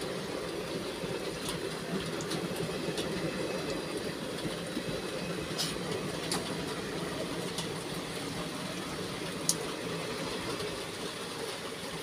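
Passenger coaches of an express train rolling past: a steady rumble of wheels on the track, with scattered light clicks and one sharp click about nine and a half seconds in.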